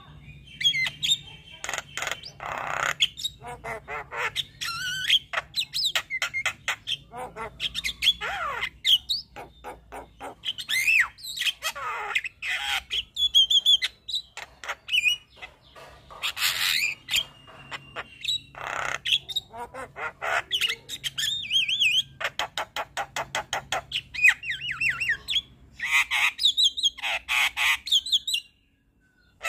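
Javan myna singing a long, varied song of harsh squawks, fast chatter and rising and falling whistles, one phrase after another with no real pause. The song stops abruptly near the end.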